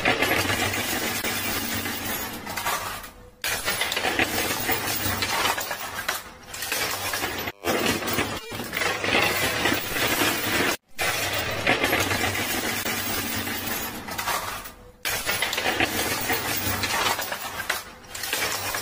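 Coin pusher machine: a continuous clatter of coins and plastic poker chips clinking and sliding against each other on the playfield, broken by a few brief silent gaps.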